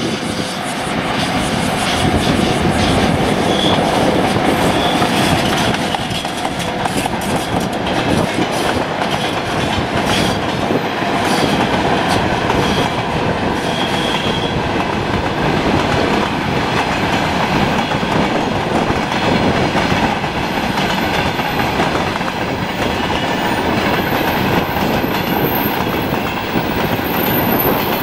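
Long freight train hauled by a VL80S AC electric locomotive rolling past, a steady rumble of wagons with wheels clicking over the rail joints.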